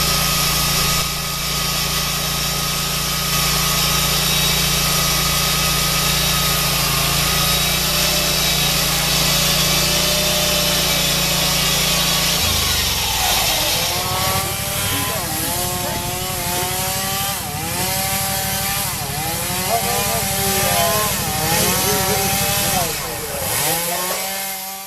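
Gasoline-powered portable sawmill engine running and sawing a large log. About halfway through, the sound changes sharply and the pitch then wavers up and down over and over as the saw works through the wood.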